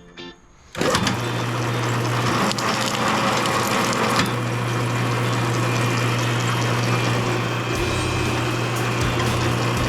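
A machine starts up suddenly about a second in and runs steadily: a constant low hum under a loud, even rushing noise.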